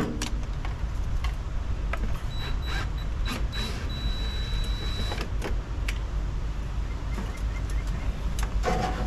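A steady low engine rumble with scattered clicks and knocks. A thin high tone pulses a few times and then holds, from about two and a half to five seconds in.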